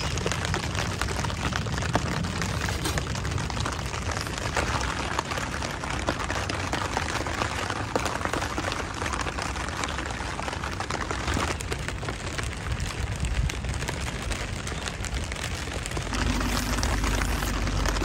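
Steady rain pattering on the tent, a dense hiss of fine drops. A low rumble joins it near the end.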